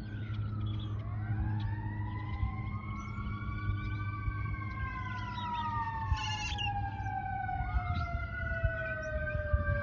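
Several sirens wailing at once, each pitch slowly rising and falling, over a low steady rumble.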